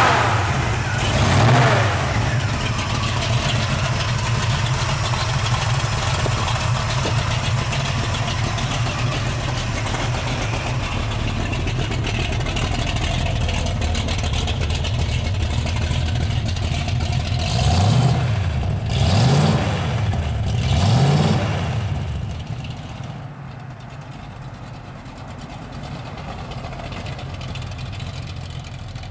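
Chevelle's 454 V8 catching as it starts and briefly revving, then idling steadily. About 18 to 21 seconds in it is blipped three times, then it drops to a quieter, fading note as the car pulls away.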